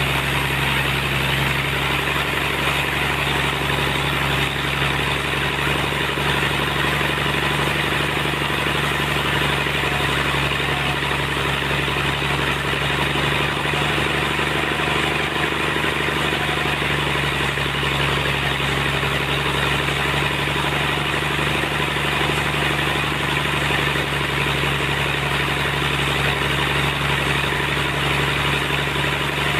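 Sawmill running steadily: a constant low machine hum with a dense, even noise over it that does not change throughout.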